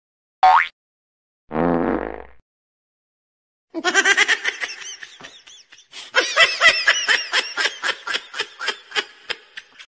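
A short rising squeak and a brief low buzzing tone, then a long run of rapid laughter, several bursts a second, through the second half.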